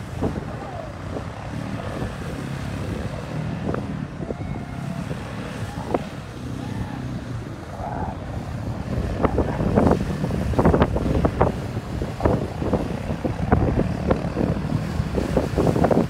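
Suzuki King Quad 750 ATV's single-cylinder engine running as the quad churns through deep mud and water. It gets louder from about nine seconds in, with many short splashes and slaps of mud on top.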